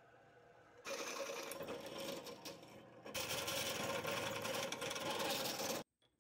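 Benchtop drill press running, its twist bit cutting through a flat metal bar. The motor hum comes first; about a second in the loud cutting noise starts, eases briefly around three seconds, then continues and cuts off suddenly near the end.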